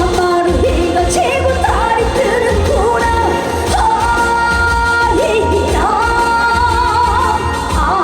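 Live trot song: a woman singing with vibrato and long held notes over amplified band backing with a steady bass beat.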